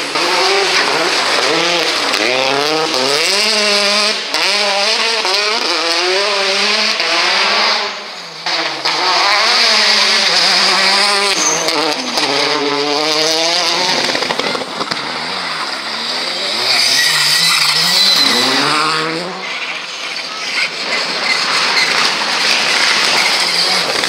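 Turbocharged four-cylinder rally cars (Peugeot 208 T16s) driven flat out past the stage, one after another, engines revving hard and dropping back through quick gear changes over and over.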